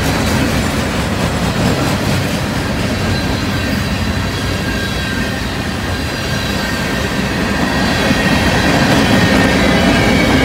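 Freight train of open-top and covered hopper cars rolling past at close range: a steady rumble of steel wheels on the rails, with a faint high wheel squeal over it.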